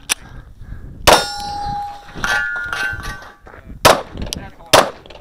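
A 9mm Glock 19 firing. Steel targets are hit and ring with a clang that lasts about a second, twice in a row, then two more sharp shots come near the end, about a second apart.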